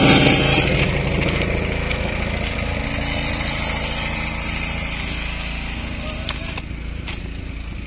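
JCB backhoe loader's diesel engine running, a steady rumble that fades slowly as it falls behind.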